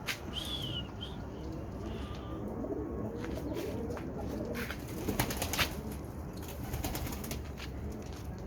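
Domestic pigeons cooing in low, wavering calls, with two sharp wing claps a little past the middle.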